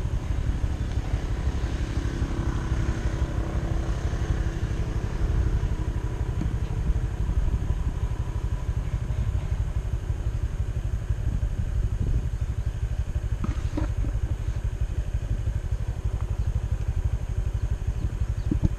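Continuous low rumble of wind buffeting the microphone, with a motor vehicle engine heard faintly a couple of seconds in, fading out after a few seconds.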